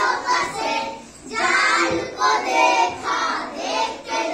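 Children singing a song together, phrase by phrase with short breaks between lines.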